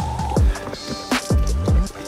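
Background music: a track with deep bass notes that slide steeply down in pitch, several in quick succession.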